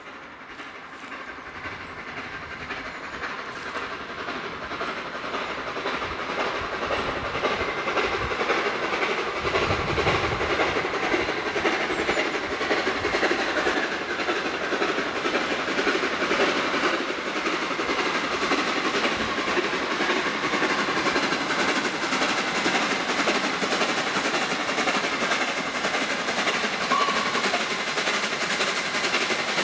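Steam locomotive 60103 Flying Scotsman, a three-cylinder LNER A3 Pacific, working a train towards the listener: a fast, steady stream of exhaust beats that grows louder over the first several seconds and then holds.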